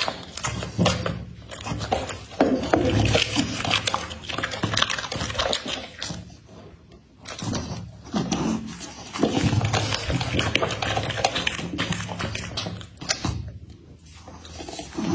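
A dog making noises in irregular bouts, with brief lulls about six and thirteen seconds in.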